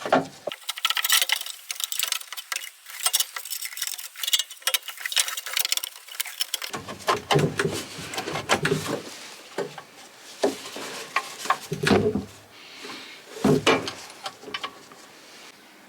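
Handling noise of reassembly work on a small engine: quick clicks and rattles of tools and small parts, then a few separate heavier knocks.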